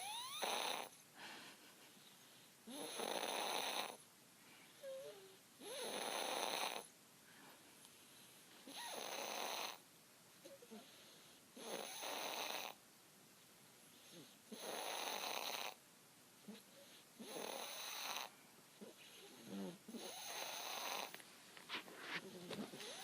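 A sleeping baby snoring in a slow, even rhythm, a noisy snore about every three seconds, eight in all. A few faint squeaky sounds come between the snores.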